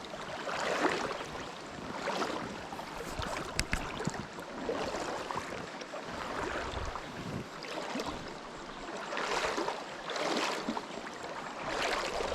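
River water rushing and splashing, coming in uneven surges every second or two.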